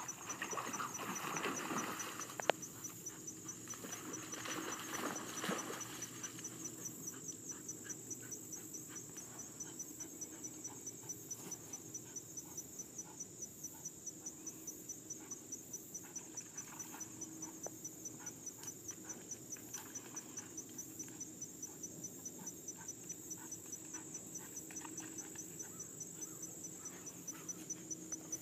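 Crickets chirping steadily, a high pulse repeating about four times a second. Over the first few seconds there is rustling and splashing, with one sharp click about two and a half seconds in.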